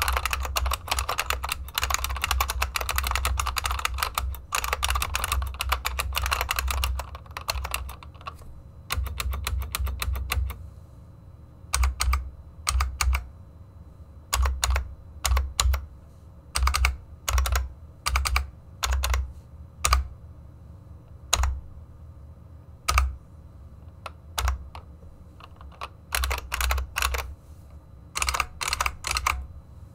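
Unicomp Model M buckling-spring keyboard being typed on, fast and continuously at first, then from about eight seconds in as separate short runs of keystrokes with pauses between. The central key cluster is damped with a floss and bandage mod, which makes it clacky rather than metallic; the arrow keys are left stock.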